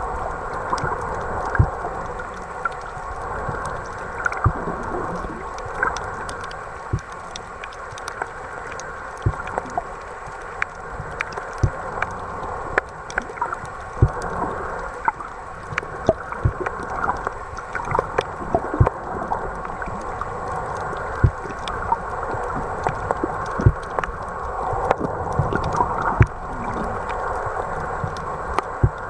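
Muffled underwater noise while snorkeling, with many irregular sharp clicks and pops scattered throughout.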